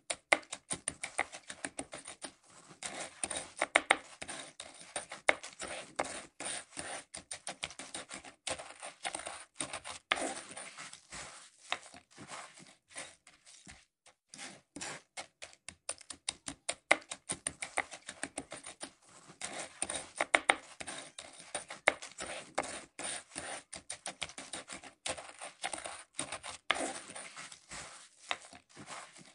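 Short handheld bristle broom sweeping a tiled floor: quick, irregular scratchy strokes of the bristles across the tiles, with a brief pause about halfway.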